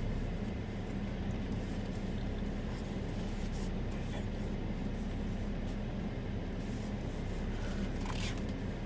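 Steady low hum and rumble inside a stationary car, as from its engine idling, with a few faint ticks.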